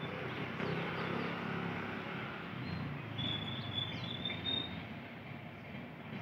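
Indian Railways express passenger coaches rolling past on the rails as the train pulls into the station, a steady rumble, with a brief high squeal about three seconds in.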